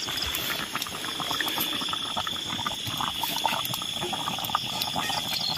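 Food bubbling and sizzling inside a hot, charred bamboo tube just taken off the coals, with a dense run of small crackles and pops. The contents are cooked through.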